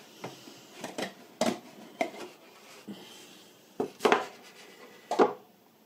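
Cardboard box of a plastic model kit being handled and its lid taken off: a string of irregular sharp knocks and taps with cardboard rubbing, the loudest about four and five seconds in.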